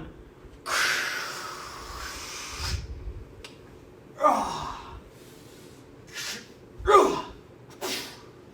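A person's breathing and vocal noises: one long breathy exhale, then a few short, sharp gasps, some falling in pitch.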